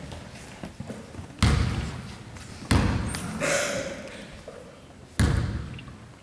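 A basketball bounced three times on a hardwood gym floor. Each bounce is a sharp thud with a long echoing decay in the large hall.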